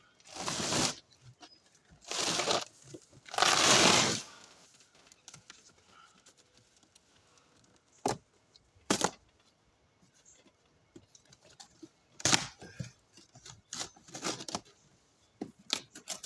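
Cardboard box packaging being torn open: three long rips in the first four seconds, then scattered knocks and crinkles.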